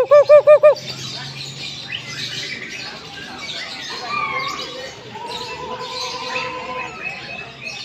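Butcherbird singing: four loud, quick, looping whistled notes right at the start, followed by softer varied whistles and calls mixed with other birds chirping.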